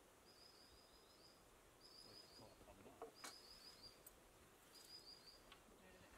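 Faint birdsong: a small bird repeating a short phrase of quick high notes about every second and a half, with a few faint clicks in between.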